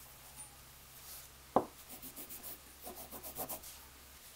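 Cloth rubbing and scuffing on the knurled steel chuck shell of a hand drill, in short strokes, with one sharp click about one and a half seconds in.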